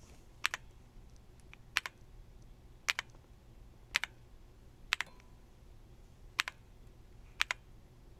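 Single key presses on a Lingbao K98 mechanical keyboard: about eight separate sharp clacks spaced roughly a second apart, a couple of them coming as quick double taps.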